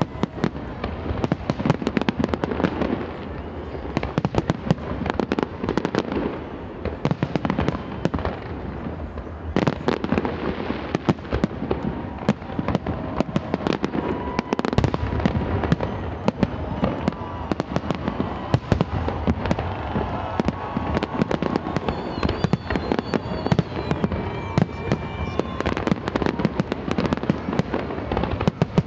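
Aerial fireworks display: a rapid, continuous run of bangs and crackling shell bursts, many overlapping, with no let-up.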